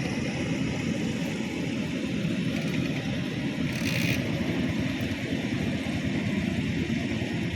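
Rice combine harvester's engine and machinery running steadily, with a brief hiss about four seconds in.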